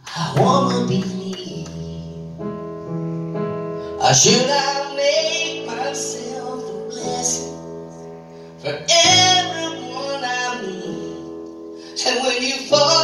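A woman singing live into a microphone with keyboard accompaniment, her sung phrases set over held keyboard chords.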